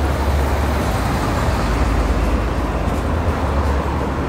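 Steady street traffic noise with a strong low rumble of passing vehicles.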